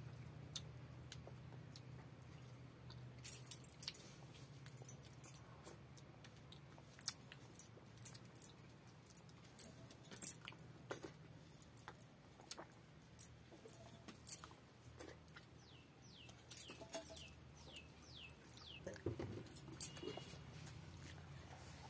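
Soft eating sounds: irregular wet clicks and smacks of chewing and of fingers mixing rice and curry on a banana leaf. About two thirds of the way in, a bird gives a quick run of short falling chirps.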